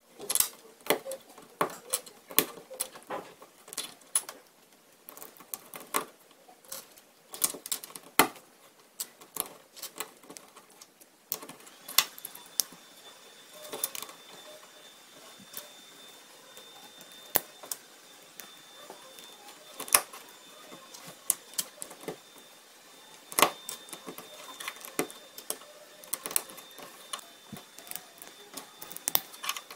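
Plastic Lego bricks and plates clicking as they are pressed together and set down on a tabletop, in irregular sharp clicks. A little over a third of the way in, a faint steady high whine starts underneath.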